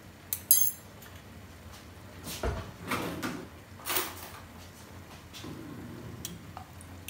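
Kitchen items being handled on a counter: a sharp, ringing clink near the start, then a few duller knocks around the middle.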